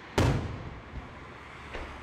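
Aerial firework shell going off with a sharp loud bang a moment in, its rumble dying away over about half a second, then a much fainter bang near the end.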